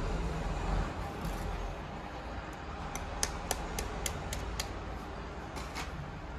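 A run of light, sharp clicks and taps, about three a second for a second and a half, with one or two more near the end, over a steady low background rumble.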